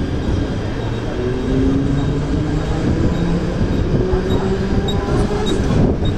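Mumbai suburban electric local train pulling out of a station, heard from its open doorway: the coach rumbling and rattling over the track, with a motor whine slowly rising in pitch as the train gathers speed.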